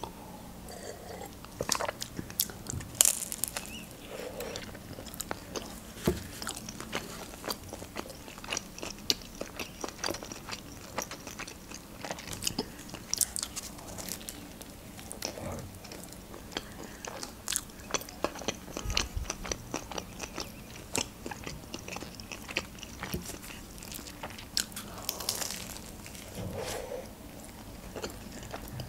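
Close-miked eating of a homemade shawarma: bites into the wrap and chewing, with many small irregular crunches and wet mouth clicks.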